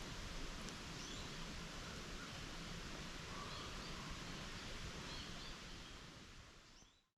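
Outdoor woodland ambience: a steady background hiss with scattered short bird chirps, fading out near the end.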